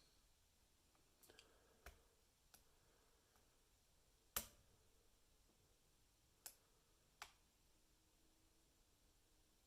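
Faint, scattered clicks of a lock pick working the pins of a Lockwood 334B45 heavy brass pin-tumbler lock, about seven in all, with the loudest a little under halfway through.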